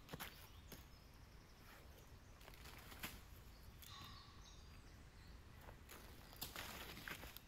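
Quiet woodland ambience: faint hiss with scattered small clicks and rustles, the longest rustle about six and a half seconds in, and a few faint short bird chirps in the middle.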